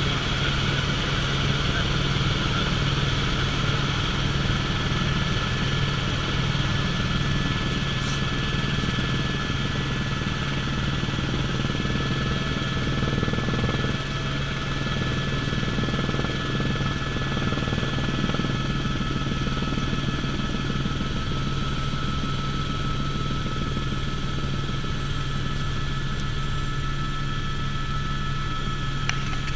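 Helicopter in flight heard from inside the cabin: a steady drone of rotor and turbine with a constant higher whine.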